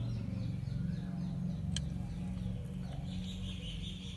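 An engine running steadily at idle, a low even hum, with small birds chirping in short falling notes above it and one sharp click a little before halfway.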